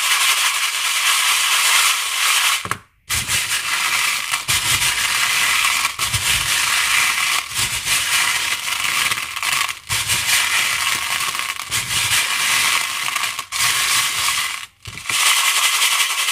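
Plastic pearl beads rattling and clattering against each other and the plastic bowl as a hand stirs them, a dense continuous rattle. It breaks off briefly about three seconds in and again near the end.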